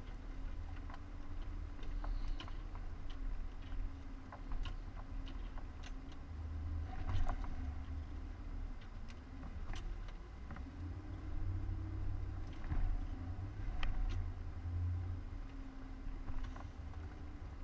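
Off-road 4x4's engine running at low revs as it crawls along a rocky trail, heard from inside the cab: a low rumble whose pitch rises and dips a few times. Scattered sharp clicks and ticks sound throughout.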